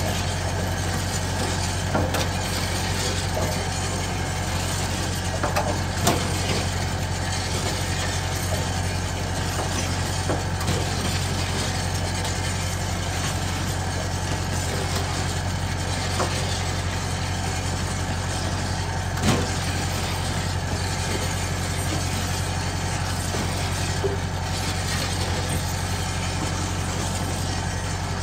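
Garri frying machine running steadily: its electric gear motor hums, turning bevel and spur gears that drive a paddle stirring cassava grits around a steel pan. A few sharp clicks break in, the clearest about six seconds and nineteen seconds in.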